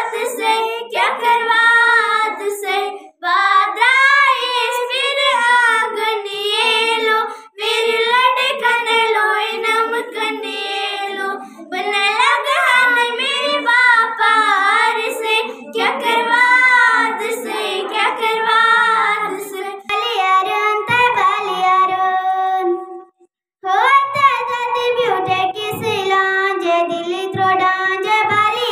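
Two young girls singing a song together without accompaniment. About three-quarters of the way through, the singing cuts off suddenly, and then a single girl carries on singing.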